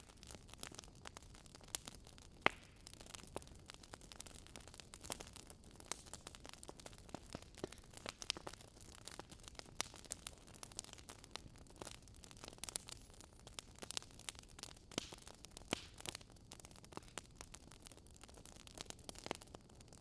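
Faint, irregular crackles and ticks over a low hiss, with one sharper snap about two and a half seconds in.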